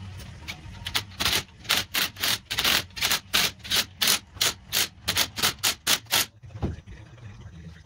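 A hand tool working the propeller's mounting bolts at the hub: about twenty quick rasping strokes, about four a second, stopping a little after six seconds in.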